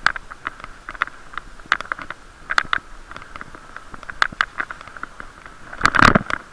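Irregular sharp taps and clicks on a plastic waterproof camera housing, each with a hollow ring, with a louder knock and rustle about six seconds in.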